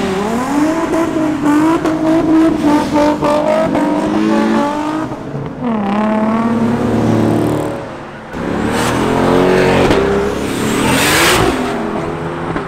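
Cars pulling out one after another and accelerating hard, each engine revving up and climbing in pitch, then dropping back as it shifts, several times over. About eleven seconds in, one car passes close by.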